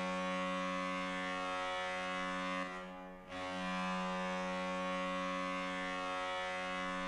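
NHL arena goal horn sounding a steady, low-pitched blast of one unchanging pitch. It breaks off briefly about three seconds in, then sounds a second long blast.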